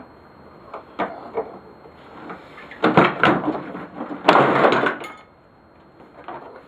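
The mostly plastic housing and parts of a battery-powered lawnmower being knocked and pulled apart by hand, as its motor wiring is worked loose. Scattered clicks and knocks, a cluster of knocks about three seconds in, and a louder, harsher clatter lasting about half a second a little after four seconds.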